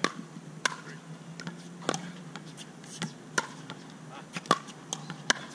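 Pickleball rally: sharp pops of paddles striking a plastic pickleball and the ball bouncing on the hard court, about seven at uneven spacing, the loudest in the second half. The hitter is alternating firm drives and soft dinks.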